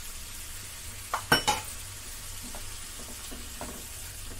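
Potato, pea and pea-pod sabzi frying in masala in a kadhai on medium-to-low heat, sizzling steadily as a spatula stirs it. A sharp knock of the spatula against the pan comes about a second and a half in.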